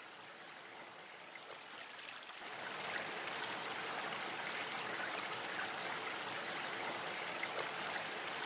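River current flowing and lapping against rocks at the water's edge, a steady rushing that grows louder about two and a half seconds in.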